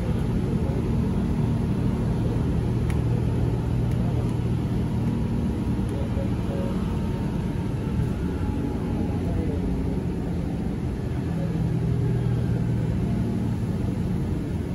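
Inside a moving Scania K310IB city bus: the engine running and the road rumble steady, the engine note swelling and easing a little as the bus drives on.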